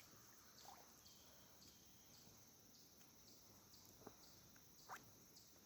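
Near silence: faint outdoor ambience with insects chirping in a steady high rhythm, about two or three chirps a second, and a few faint clicks.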